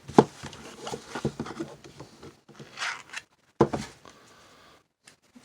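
A headphone ear cover being pulled off by hand: plastic clicks and scraping, with a sharp click just after the start and another knock about three and a half seconds in.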